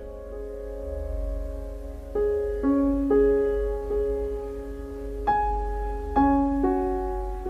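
Soft, slow solo piano music: single notes and chords struck every second or so, each left to ring and fade.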